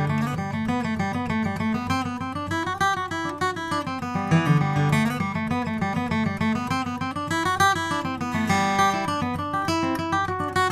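Acoustic guitar playing a passage of picked notes and chords over a moving bass line.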